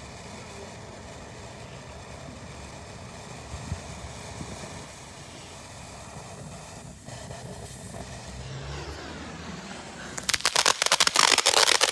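Low steady background for about ten seconds, then, near the end, a consumer firework starts going off with rapid, dense crackling that is much louder.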